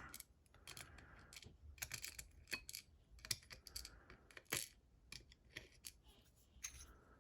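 Faint, irregular small metallic clicks and taps as a padlock is taken apart and its pin tumblers and springs are handled and shaken out.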